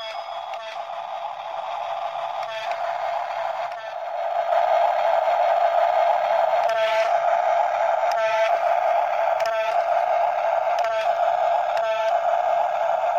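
Small electric motor and plastic gearbox of a remote-control toy excavator or dump truck whirring steadily, getting louder about four seconds in. A faint click comes roughly every second or so.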